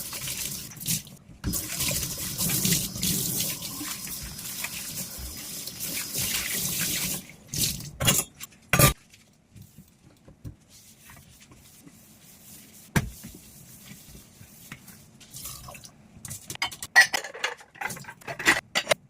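Kitchen tap running water into a sink during dishwashing, shut off suddenly about seven seconds in. A few knocks of dishes follow, and near the end plates and cutlery clink together.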